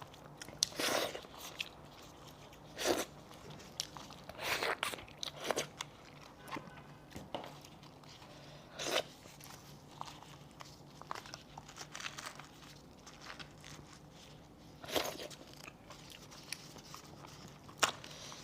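Someone biting and chewing meat off a cooked goat head: irregular crunching and mouth sounds, a few every second or two, over a faint steady hum.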